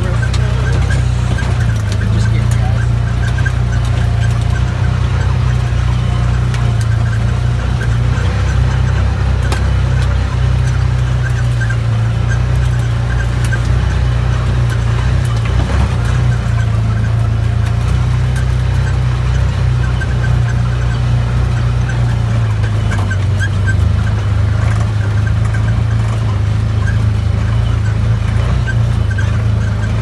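Side-by-side UTV engine running steadily under way on a trail, heard from inside the open cab, with a constant low drone.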